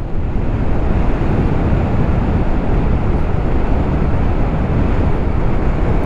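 Steady rush of wind over the camera microphone of a moving motorcycle, with low road and engine rumble underneath.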